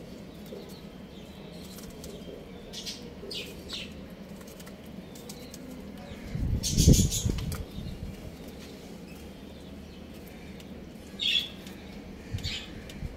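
A young rooster flapping its wings in one short flurry about halfway through, with a few brief chirps from young chickens before and after.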